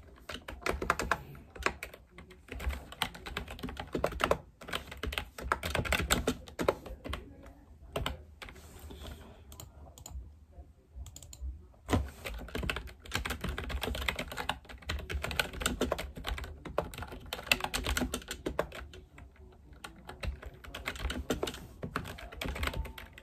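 Typing on a keyboard with round, typewriter-style keycaps: a busy run of key clicks that pauses for a second or two about halfway, then resumes with one sharper click.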